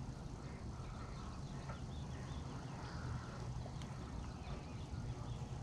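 Quiet outdoor ambience over calm water: a faint steady low hum, with faint short bird chirps now and then.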